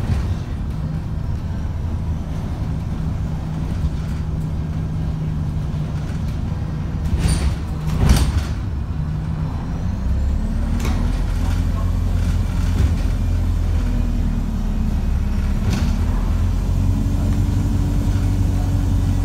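ADL Enviro350H bus engine running, heard from inside the bus. There is a short hiss of air about seven to eight seconds in, then the engine note gets louder and deeper from about ten seconds, with a faint rising whine. The uploader calls this engine unhealthy.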